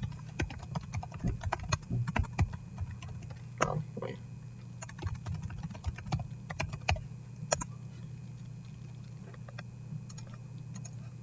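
Typing on a computer keyboard: a quick, irregular run of keystrokes that thins out after about seven and a half seconds, leaving a few scattered clicks near the end, over a steady low hum.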